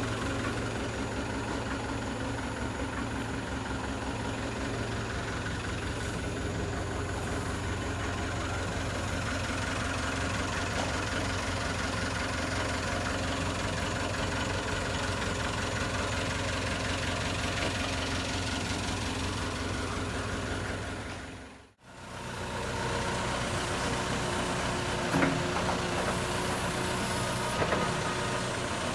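JCB 3CX backhoe loader's diesel engine running steadily, with a few light knocks near the end. The sound fades out and back in about two-thirds of the way through.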